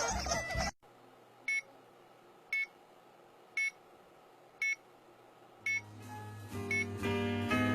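Five short electronic beeps, evenly spaced about a second apart, between a sudden cut of the music under a second in and music fading back in near the end.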